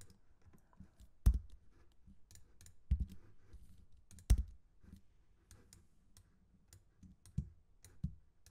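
Scattered clicks of a computer mouse and keyboard keys, a dozen or so separate taps. Two sharper clicks stand out, about a second in and just past four seconds.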